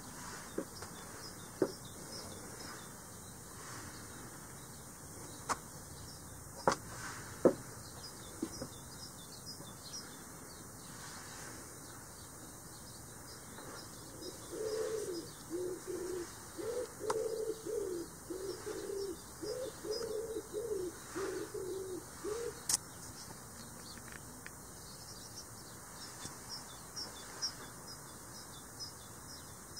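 A dove cooing: a run of low coos lasting some eight seconds from about halfway in, over faint high chirping of small birds. A few sharp clicks, the loudest sounds, come in the first eight seconds.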